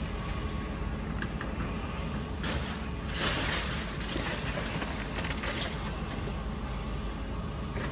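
Steady low rumble of a passing train mixed with demolition machinery, with louder bursts of noise about two and a half seconds, three seconds and five seconds in.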